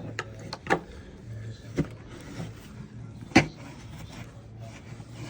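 A few sharp knocks and clicks, the loudest about three and a half seconds in, over a steady low hum.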